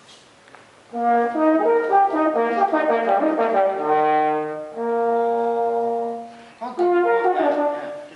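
French horn played solo, unaccompanied: after about a second of quiet, a phrase of changing notes, then a long held note through the middle, a short break, and a last phrase that fades away near the end.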